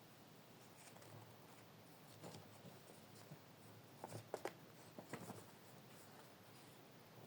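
Near silence with faint rustling and a few light taps and clicks from handling the packaging and parts of a foam model airplane kit, the clearest cluster of taps about four to five seconds in.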